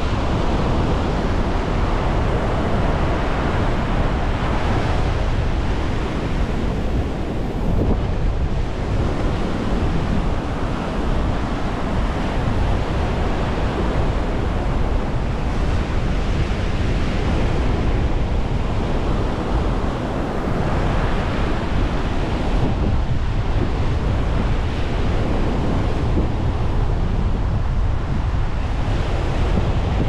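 Ocean surf washing onto the beach, its hiss swelling and fading every few seconds, with wind buffeting the microphone in a constant low rumble.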